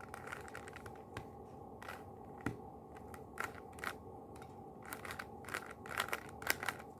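Plastic Rubik's Cube faces being turned by hand: faint, irregular clicks and snaps, coming faster in the last couple of seconds.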